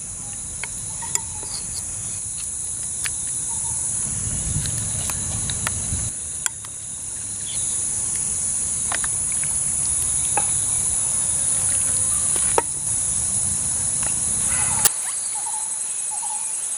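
Insects trilling in a steady, high-pitched chorus, with scattered faint clicks. Near the end a faster repeated chirping joins in.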